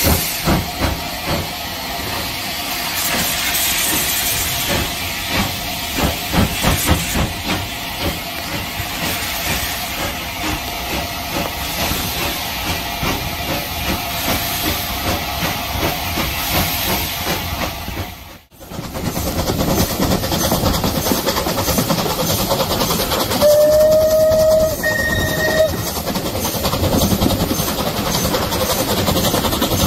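Steam locomotive hauling a train, heard from a carriage window: exhaust beats over a constant hiss of steam, with steam released low beside the track from the cylinder drain cocks. About two-thirds through, a steam whistle sounds for about two seconds, with a slight step in pitch partway.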